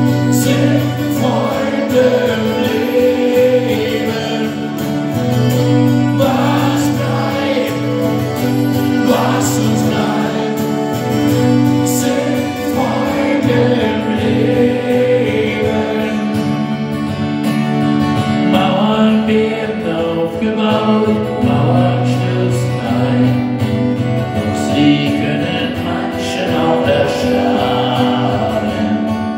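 Live acoustic music: a violin plays a sustained, wavering melody over strummed acoustic guitar chords, with no singing.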